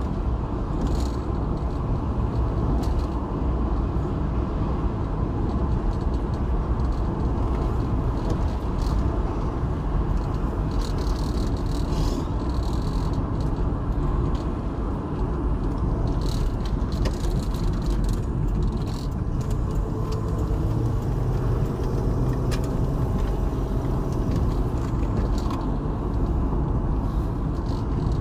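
Steady road and engine noise heard inside a moving car's cabin, with occasional light rattles and clicks.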